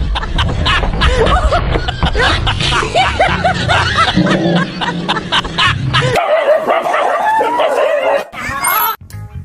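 A dog barking and yelping rapidly and over and over, in alarm, over background music. About six seconds in the barking stops and music carries on.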